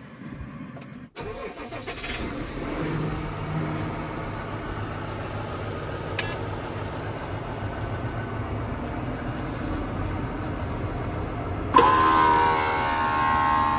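A 2015 Case IH Magnum 220 tractor's six-cylinder diesel is started: it catches about a second in and settles into a steady idle. Near the end a small air compressor switches on abruptly with a loud, steady whine over the idle. It supplies air to the emergency pneumatic shutoff valve of the anhydrous ammonia tank.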